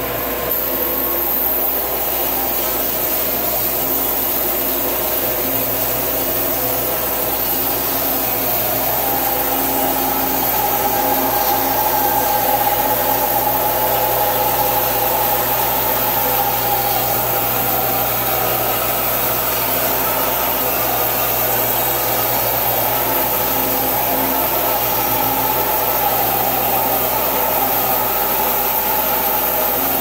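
Delta 14-inch bandsaw, fitted with a 1.5 hp motor and a Timberwolf blade, running steadily while its blade rips lengthwise through a spalted hackberry log fed on a hand-cranked carriage.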